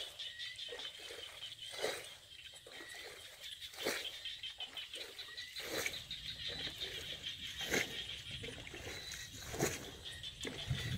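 Muddy rice-field water splashing and sloshing in short bursts about every two seconds, over a steady high-pitched chirring chorus in the background.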